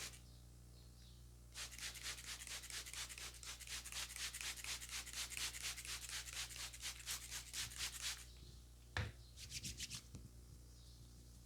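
Hands rubbing fast over hair and scalp in a vigorous head massage, at about six strokes a second for several seconds. About nine seconds in comes a single sharp thump, then a short second burst of rubbing.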